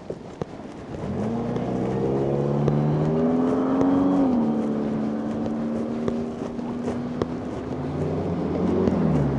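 A motor vehicle's engine accelerating close by, starting about a second in: its pitch climbs, drops as it shifts up a gear a few seconds later, then holds steady before shifting again near the end.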